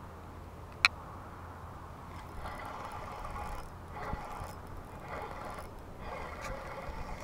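A single sharp click, then a fishing reel cranked in four short spurts, each a mechanical whirring of about a second.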